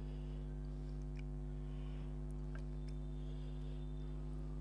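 Fingers squishing and mixing fish curry and rice, with a few soft wet clicks, over a steady electrical hum.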